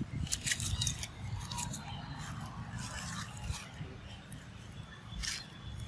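Dry leaf litter crackling and rustling in a few short spells as macaques scramble and forage on it, busiest in the first second, over a low steady rumble.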